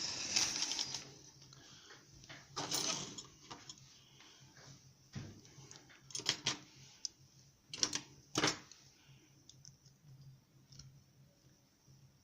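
Metal clicks and rattles of a challenge lock and its key being handled and locked up with the key: a rustling rattle at the start, then several separate sharp clicks, the loudest pair near two-thirds of the way through.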